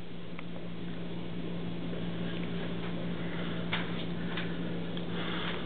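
Water bubbling in a lit glass-column fountain, a steady fine bubbling over a constant low hum.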